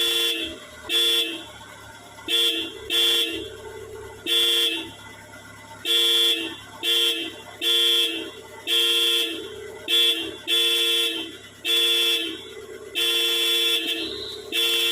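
Car horn honked over and over, about fourteen short toots of uneven length, each with a two-note tone.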